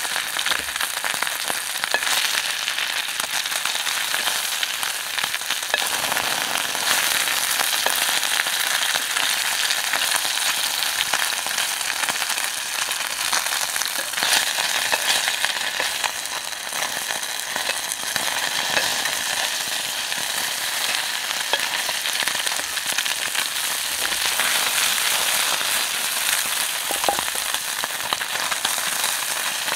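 Small whole fish frying in hot oil in a steel frying pan: a steady sizzle with fine crackling throughout.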